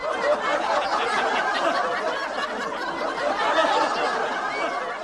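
A crowd of people laughing and chattering at once, a dense, even wash of many voices that starts suddenly, like a studio audience or laugh-track burst after a joke.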